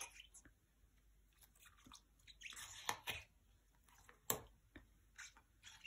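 A dog chewing and gnawing on a toy: faint, scattered crunching and clicking, busiest about halfway through, with one sharp click a little later.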